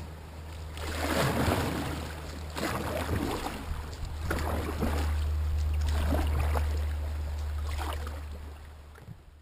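Canoe paddle strokes dipping and splashing in shallow river water, roughly one a second, over a steady low rumble. The strokes fade near the end.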